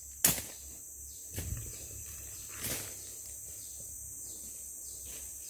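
Steady high-pitched drone of tropical forest insects, with a few brief rustles and crackles of dry leaf litter being handled, the sharpest about a quarter second in.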